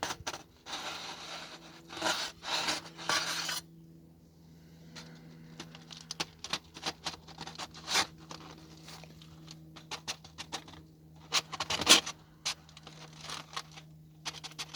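Scraping and rubbing handling noises, with a run of small sharp clicks and taps in the second half, over a faint steady low hum, as the smoked chuck roast is probed and handled on the smoker.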